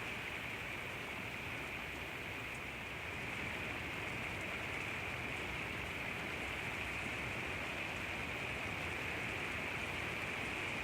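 Steady rain falling: a continuous even hiss with faint scattered drop ticks, holding at a constant level.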